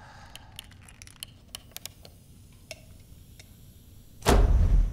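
Handheld gas blowtorch being handled with a series of small metallic clicks, then lit about four seconds in with a sudden loud rush of flame.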